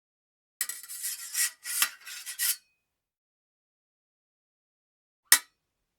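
Fencing sabre blades sliding against each other: a run of bright metal scrapes, several strokes over about two seconds. About five seconds in comes one short, sharp metal hit.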